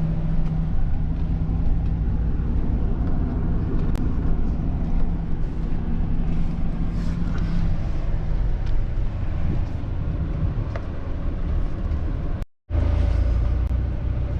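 Pickup truck driving: steady engine and road rumble, with a faint rattle of the load now and then.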